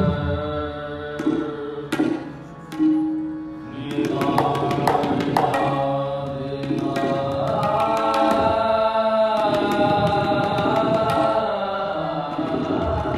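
Tabla drums played with harmonium accompaniment in Sikh kirtan style. The harmonium holds sustained notes while the tabla beats out strokes, with a quick flurry of sharp strokes a few seconds in.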